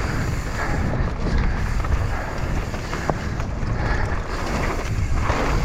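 Wind buffeting an action camera's microphone while a mountain bike rolls fast down dirt singletrack. The tyres rush steadily on the dirt, with a few sharp clicks and knocks from the bike.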